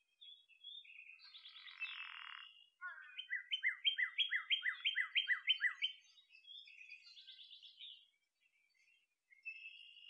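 Birdsong: scattered high chirps, then a run of about a dozen quick downward-slurred notes, about four a second, then a few more chirps.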